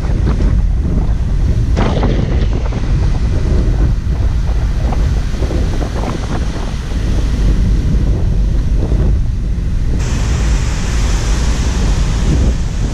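Strong wind buffeting the microphone, a loud low rumble that surges in gusts; about ten seconds in a steady hiss joins it.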